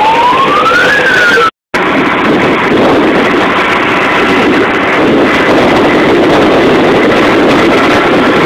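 Fire truck siren wailing, its pitch rising for about a second and then starting to fall; after a short break, the fire truck's engine runs steadily close by.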